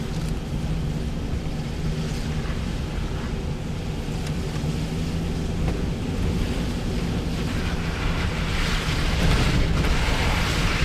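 A vehicle's engine running with a steady low hum under road and wind noise, swelling near the end.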